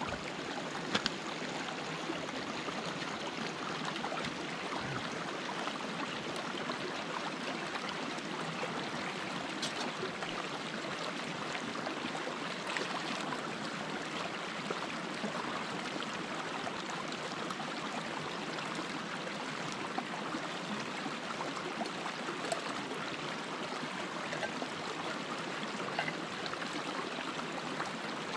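Small woodland stream running steadily over stones in a shallow cascade, with a few faint clicks.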